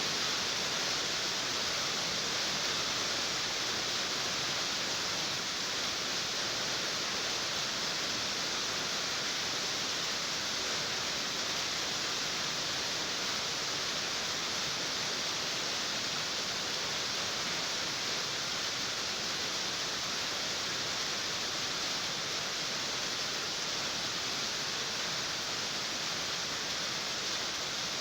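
Rain falling steadily on a tin roof: a dense, even hiss of drops with no let-up.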